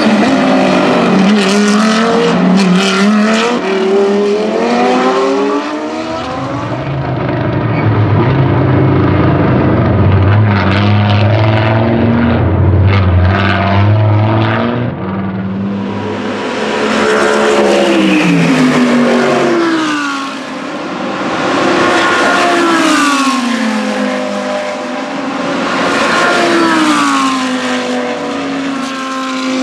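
Lamborghini Huracán GT3 race cars' V10 engines at race pace, several passes in a row, the engine note rising and falling through gear changes and dropping away as each car goes by. A stretch in the middle has a deeper, rougher engine drone with short sharp cracks.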